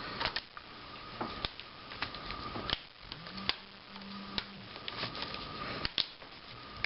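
Small screwdriver tightening tiny screws in a laptop's screen assembly, with irregular small clicks and ticks of metal and plastic.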